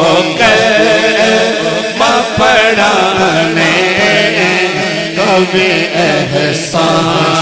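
A man's amplified solo voice sings a devotional Urdu naat/zikr line in long, ornamented melismatic phrases over a PA, with a steady low drone beneath.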